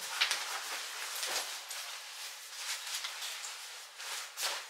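Nylon puffer jackets rustling and swishing as one is taken off and another handled, with a few brief louder swishes, one about a second in and one near the end.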